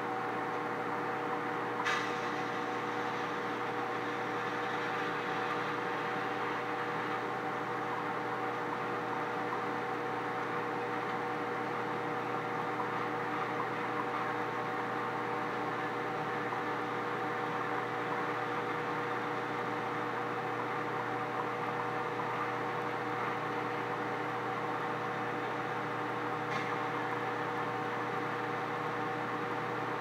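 Microwave oven running while heating a banana: a steady hum and whir. One sharp click about two seconds in and a fainter one near the end.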